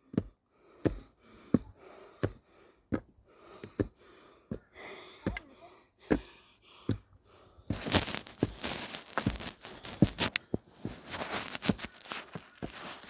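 Footsteps of a hiker climbing a trail stairway, about one and a half steps a second, with rustling and crackling of clothing or wind against the microphone from about eight seconds in.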